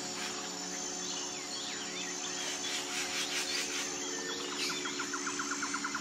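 Birds chirping over a steady background hum of insects, with a fast, even trill starting a little past the middle.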